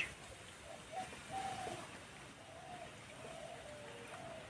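Faint bird calls in the background: a short high chirp at the start, then a run of short, low calls from about a second in.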